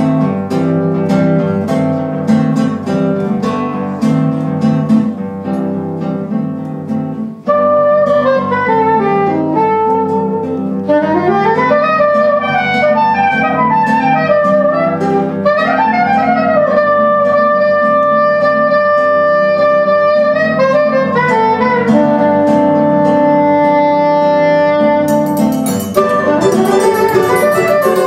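Brazilian choro quartet playing a baião live. Acoustic guitar and cavaquinho open with rhythmic plucked chords. About seven seconds in, a soprano saxophone takes up the melody with sliding phrases, and bright percussion joins near the end.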